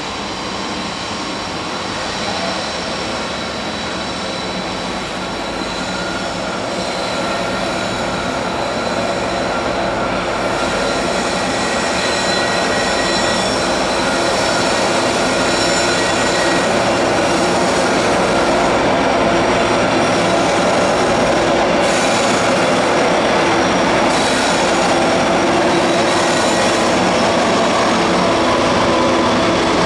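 Union Pacific grain train passing: two diesel locomotives running, growing steadily louder as they approach and go by, then covered hopper cars rolling past with steady wheel noise and thin, steady squealing tones from the wheels.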